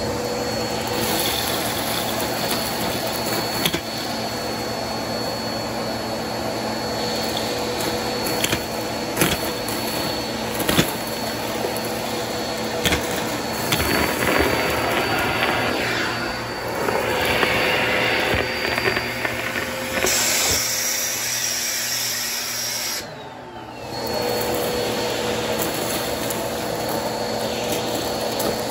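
Upright vacuum cleaner running with its hose and narrow nozzle sucking up confetti, sequins and plastic bits from carpet: a steady motor whine with the rushing of air, and scattered sharp clicks and rattles as pieces are pulled up the hose. About three quarters of the way through the sound dips and muffles briefly, then comes back.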